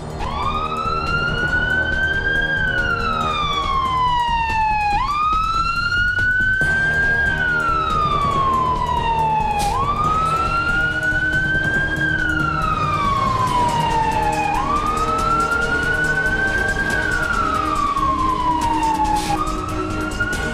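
Siren on a police water cannon truck sounding a slow wail: the pitch climbs for about two and a half seconds, then slides back down, repeating about four times. The heavy vehicle's engine runs underneath.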